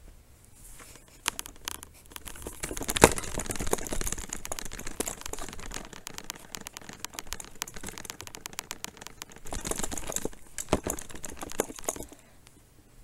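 Crackling, rustling handling noise from a camera being moved about close to a wooden table, with many scattered clicks and one sharp knock about three seconds in; it stops about twelve seconds in.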